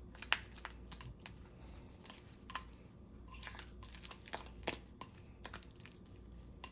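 Butter being mashed together with herbs and lemon zest: quiet, irregular clicks and soft scrapes of a utensil working the butter in a dish.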